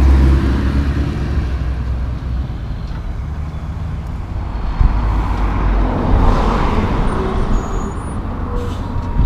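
Motor vehicle noise: a steady engine rumble, with a vehicle passing that swells and fades about six seconds in, over wind buffeting the microphone.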